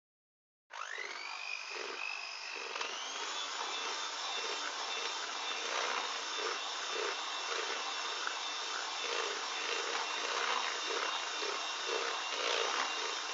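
Moulinex electric hand mixer switching on about a second in, its motor whine rising as it spins up and stepping up in pitch a couple of seconds later, then running steadily. The beaters churn through thick cake batter in a glass bowl.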